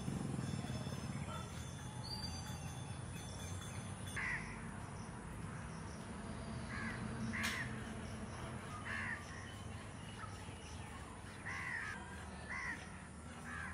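Crows cawing, single calls every second or two starting about four seconds in, over a low steady rumble of outdoor ambience. One sharp click comes about halfway through.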